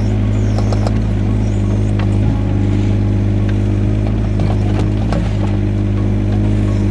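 Yanmar ViO17 mini excavator's small three-cylinder diesel running steadily at working speed, with scattered short knocks and clicks over the engine drone.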